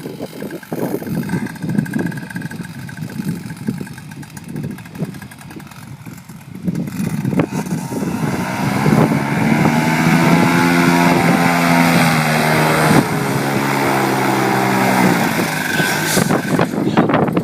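Gusty wind buffeting the microphone, then about seven seconds in a paramotor engine is throttled up and runs hard, its pitch swelling and easing back, before the steady engine note fades into loud wind and propeller noise near the end.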